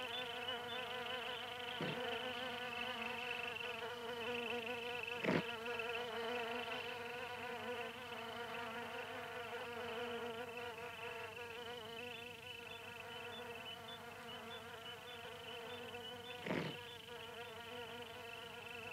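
Flies buzzing steadily, a continuous drone with a slightly wavering pitch, broken by a few faint clicks, the loudest about five seconds in.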